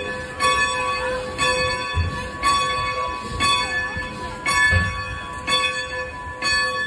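Locomotive bell ringing steadily, about one stroke a second, as the locomotive backs in to couple onto the train.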